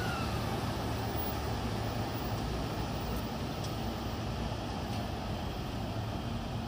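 JR East E231-series electric commuter train pulling away along the platform, its running noise slowly fading as it draws off, with a steady low hum and a brief whine that rises and falls at the start.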